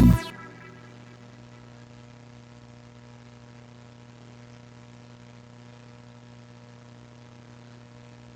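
The last hit of an electro house track cuts off right at the start, leaving a steady low electrical hum with faint hiss.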